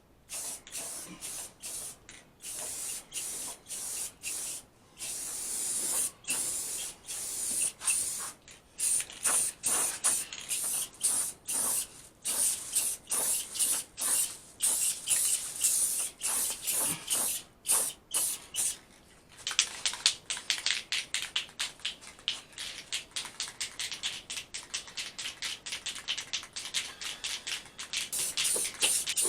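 Paint being sprayed in short, repeated hissing bursts, coming faster, about three a second, after a brief pause about two-thirds of the way through.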